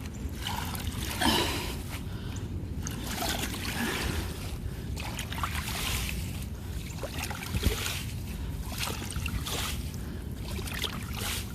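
Floodwater trickling and splashing as pine needles clogging a yard drain are raked out, with irregular swishes through the water. The water is starting to flow through the cleared drain.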